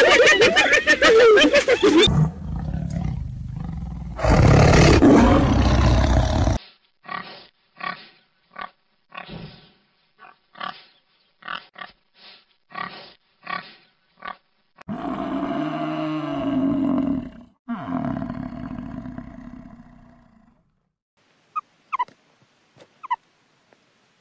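A run of animal calls. Hyena calls open it, followed by a loud rough call. Then a pig grunts in short separate grunts, about one or two a second, before a longer drawn-out call and a few brief high meerkat chirps near the end.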